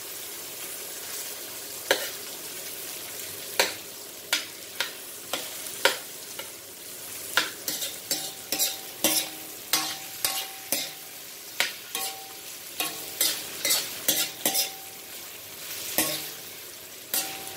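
Chicken wings, onion and garlic sizzling as they are sautéed in a heavy pan, with a utensil clacking and scraping against the pan as they are stirred. The strikes are sparse at first and come about one or two a second from a third of the way in.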